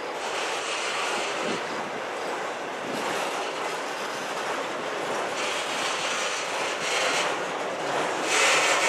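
Autorack freight cars rolling past close by, with the steady noise of steel wheels on the rails. It grows louder near the end.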